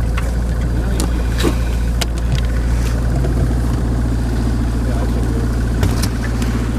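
Boat's outboard motor running steadily at low speed, with a few light clicks and knocks as a fish is handled in a landing net.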